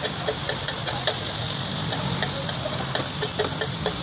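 Keema (minced beef) sizzling in oil on a large flat tawa griddle, with a metal spatula scraping and clinking on the plate in irregular strokes. A steady low hum runs underneath.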